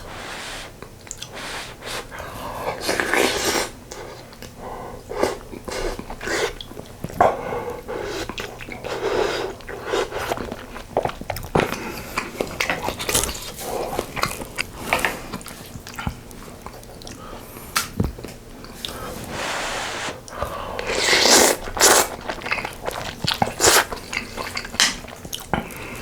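Close-miked eating of spicy sausage stew with ramen noodles: chewing and biting, with many short clicks and a few longer rushes of mouth noise lasting a second or two.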